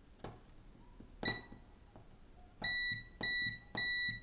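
Small tactile push-button switch clicking as it is pressed, with a multimeter's continuity buzzer giving a steady high beep whenever the pressed switch closes the circuit. There is a very short beep about a second in, then three beeps of about half a second each in the last second and a half. The beeps show that the switch's contacts are making.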